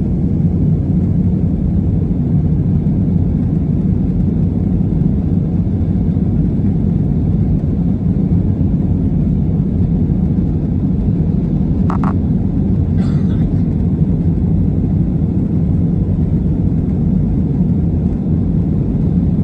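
Steady low rumble of an Airbus A320neo's cabin in flight: engine and airflow noise heard from a window seat over the wing. A faint short sound shows briefly about twelve seconds in.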